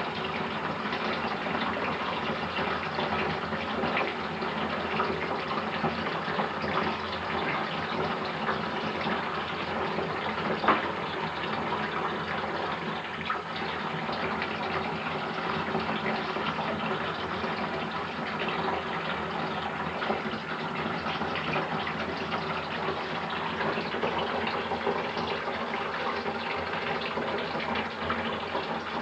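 Water running steadily from a bathroom tap, a constant gushing hiss, with one brief knock about ten seconds in.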